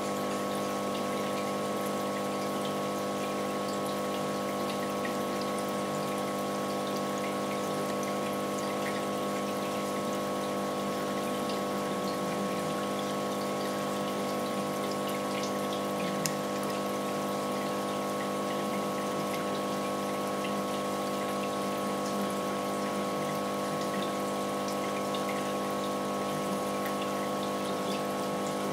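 Aquarium pump humming steadily over a constant trickle of moving water, with a few faint ticks.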